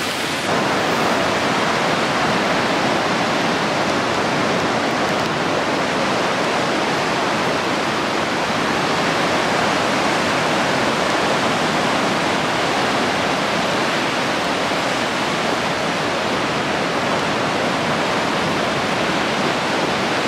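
Steady rush of Mediterranean surf breaking on a sandy beach, a loud, even wash of water noise.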